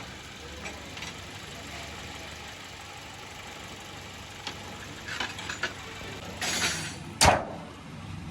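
Toyota Corolla GLI engine idling with a steady low hum, with a few light clicks and a short rush of noise, then one sharp knock about seven seconds in, the loudest sound.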